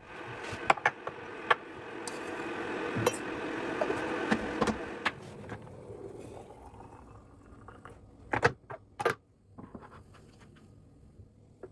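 A steady mechanical hum with light clicks and taps, fading away about five seconds in, then a few sharp knocks of kitchen handling.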